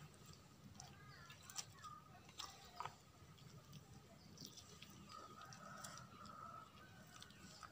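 Faint, quiet background of chickens clucking at a distance, with a few soft clicks about a second and a half to three seconds in.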